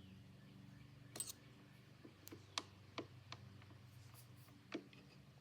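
Faint, scattered light clicks and taps of a screwdriver working the flywheel bearing and its set screw in an Edison Opera phonograph mechanism, over a low steady hum.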